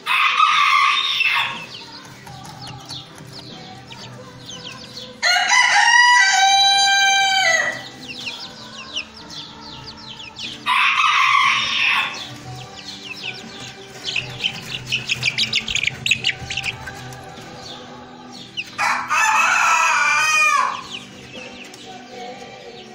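Chickens crowing, four loud crows spread through the stretch, the longest lasting about two seconds each. Between them a quick run of small chirping chick peeps comes about halfway through.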